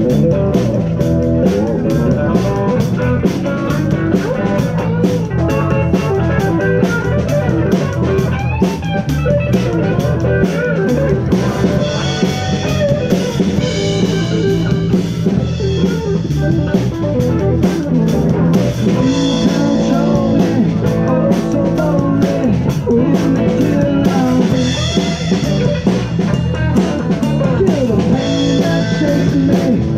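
Live band of electric guitar, bass guitar and drum kit playing a blues-rock number.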